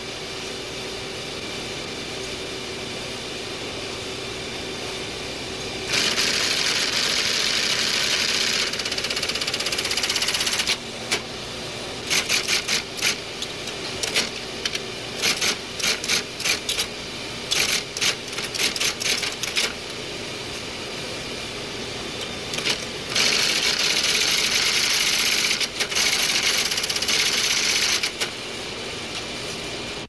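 Keys tapped on a computer keyboard over a steady electronic hum. Long stretches of rapid, continuous typing come twice, and in between there are short separate bursts of keystrokes.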